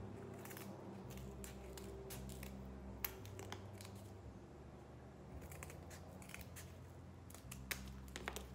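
Scissors snipping through thin cardboard with a printed picture glued on, in irregular short cuts: a sharp snip about three seconds in and a quick run of snips near the end.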